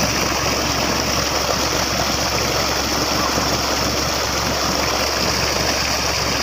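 Water gushing steadily out of a pipe outlet into a pond, a loud continuous rushing and churning, with a low steady hum underneath. The water is being moved from one pond into another.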